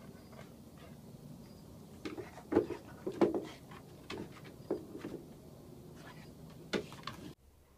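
A black Labrador retriever mouthing and pawing a stick on a wooden deck: a series of knocks and clatters of the stick against the deck boards, loudest about two and a half to three and a half seconds in.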